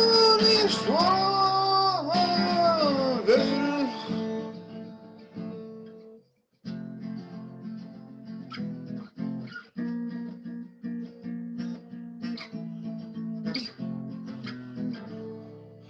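Acoustic guitar strummed under wordless singing that glides between notes, fading out after about four seconds. After a brief silence, quieter single plucked notes are played on the acoustic guitar.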